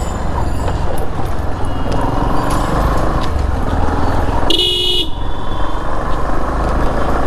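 Busy street traffic heard from a moving motorcycle: a steady engine and road rumble, with one vehicle horn honking for about half a second a little past the middle.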